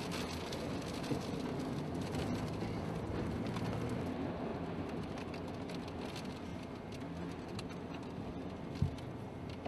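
Strong wind from a nearby tornado, a steady rushing noise, with one short low thump near the end.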